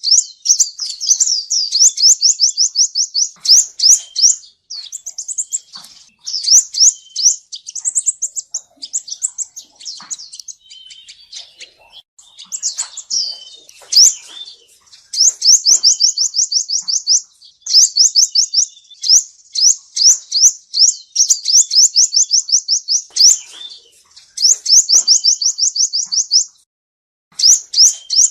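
Male sunbird singing: fast trills of high, thin, descending chirps, about seven a second, in bouts of one to three seconds with short pauses between.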